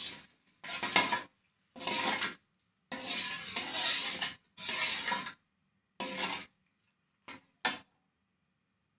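Metal ladle stirring spiced broth in a metal wok, scraping and clinking against the pan in about five separate strokes, then two short clinks a little before the end.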